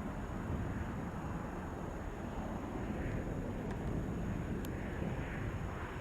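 Boeing 747 jet engines, a steady low rumble.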